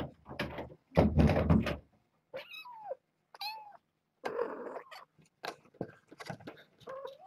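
Cats meowing in several short, falling calls, with a loud thump and rustle about a second in and scattered light knocks.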